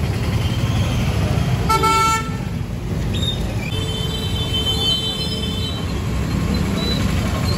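Vehicle horns honking in street traffic: one short horn blast about two seconds in, then a thinner, higher-pitched horn held for about two and a half seconds, over a steady low rumble of passing traffic.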